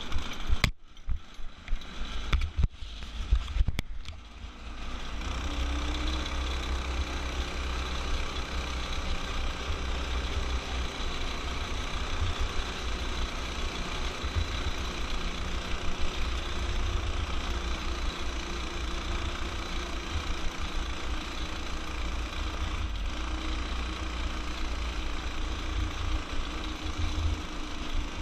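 Off-road go-kart under way on a gravel track: its small engine runs steadily beneath a heavy low rumble of wind buffeting the helmet-mounted microphone. A few hard knocks come in the first four seconds as the kart jolts over the rough surface.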